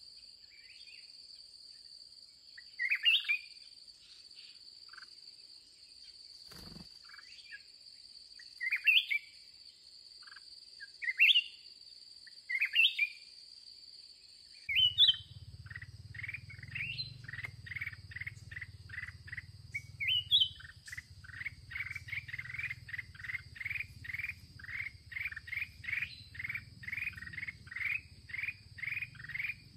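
Black-crested bulbuls calling: short rising calls every couple of seconds, then about halfway through a fast, even run of repeated notes, about two a second. A steady high insect drone runs underneath throughout.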